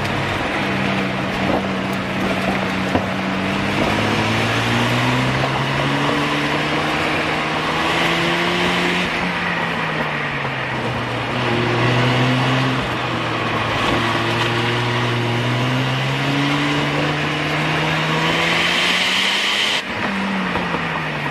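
1994 Mazda RX-7's twin-turbo 13B rotary engine under hard driving on an autocross run. It revs up and down repeatedly as the car accelerates and brakes between cones, and drops off near the end as the car slows after the finish. Tyre noise swells about 8 s in and again shortly before the end.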